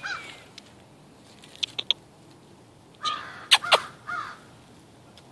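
Crows cawing, a harsh call at the start and a couple more a little past halfway. Sharp clicks and rustles come between the calls, the loudest cluster about two-thirds of the way through.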